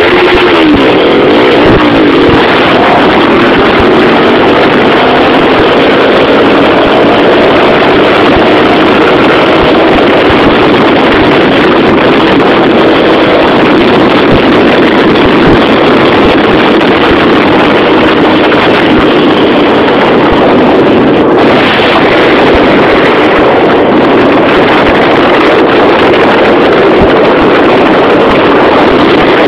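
Motorcycle engine running hard at road speed, its pitch rising slowly over the first several seconds as it pulls up through the revs, under heavy wind noise on the microphone. The whole is very loud and continuous.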